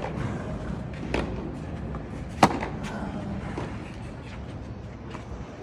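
Tennis ball struck back and forth by racquets in a baseline groundstroke rally: sharp pocks about a second or more apart, the loudest about halfway through, with fainter knocks after it.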